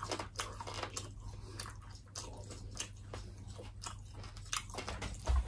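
Close-miked chewing and biting on fried pork rib and rib cartilage: irregular crisp crunches. A low thump comes near the end.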